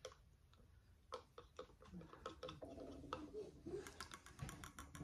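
A thin stirring stick tapping and clinking against the inside of a glass mug while instant coffee is stirred: light, quick, irregular ticks, several a second, beginning about a second in.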